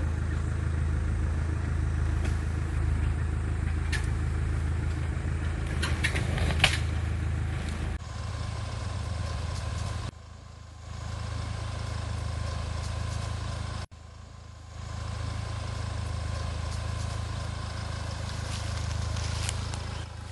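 Off-road SUV engine running low and steady while the vehicle crawls over a steep, rocky dirt trail, with a few sharp knocks of rock and clatter from the wheels and underbody.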